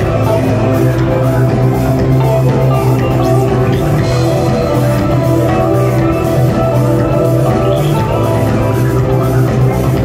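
Loud live electronic music played by a band: a sustained heavy bass line under layered held synth tones.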